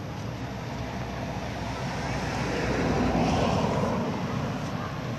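A motor vehicle passing along the road, its engine and tyre noise building to its loudest about three and a half seconds in, then fading.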